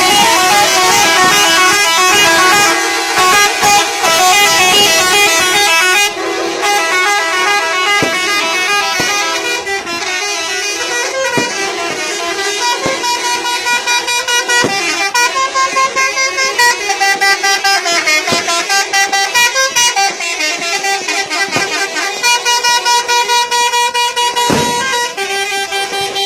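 Indonesian bus's telolet musical horn playing a tune: a fast, continuous run of loud pitched horn notes, each held for a fraction of a second before the next.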